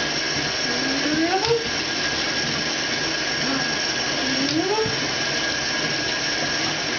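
A steady whirring noise with a faint high whine runs throughout. Over it come two short rising vocal sounds, one about a second in and one about four and a half seconds in.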